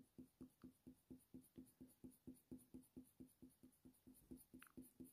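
Faber-Castell Polychromos colour pencil shading on hot-press watercolour paper: faint, short, even scratching strokes, about four to five a second, as layers of dark shadow are built up.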